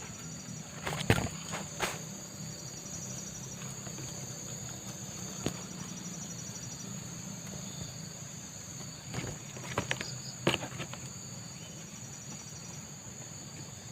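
A steady, high-pitched chorus of insects with a pulsing trill that comes and goes. A few short clicks or knocks come about a second in and again around nine to ten seconds in.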